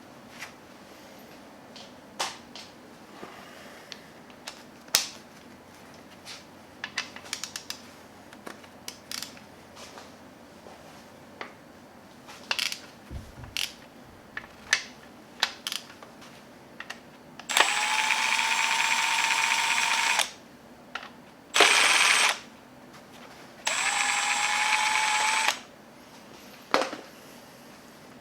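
Metal tools clinking on engine parts, then a power tool run in three bursts with a steady whine: the longest first, a short one, then one of about two seconds. These are typical of the bolts on the number 5 connecting rod cap of a Gen 4 Hemi being run out.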